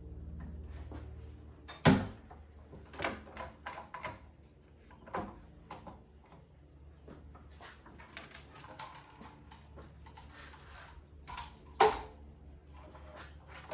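Knocks and clatter of plywood panels and tools being handled, with two sharp wooden knocks about two seconds in and near the end, and lighter clicks and rustling between.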